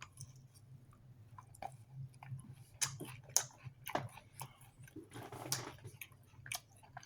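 Someone chewing a bite of a First Strike ration bar close to the microphone: soft, irregular chewing with small clicks, fairly faint.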